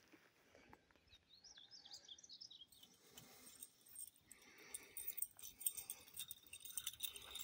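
Faint high chirps of a small bird, a quick run of notes lasting about a second and a half, starting about a second in; soft rustling of footsteps through tall grass follows.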